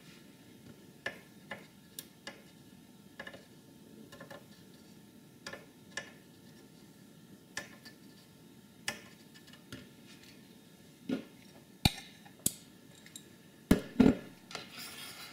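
Irregular light clicks and taps of a soldering iron and copper desoldering braid working against the bare solder pads of a computer motherboard, with a few louder knocks near the end.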